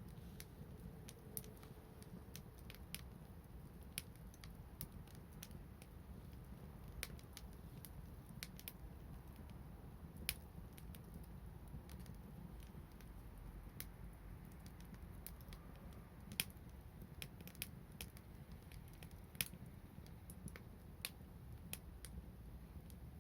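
Wood fire crackling faintly: sparse, irregular sharp pops and snaps over a low steady rumble.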